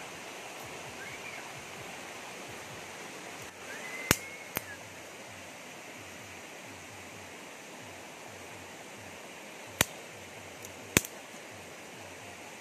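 Steady rush of a shallow, rocky stream, with four sharp snaps: two close together a few seconds in and two more near the end, as dry twigs are broken and laid for a fire.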